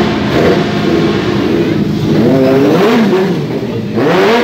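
Sport motorcycle engine running, then revved in short blips a little after two seconds in and again near the end, the pitch rising and falling each time.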